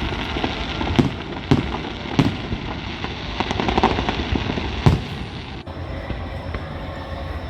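Fireworks going off: a handful of sharp, irregular bangs over a steady noisy background.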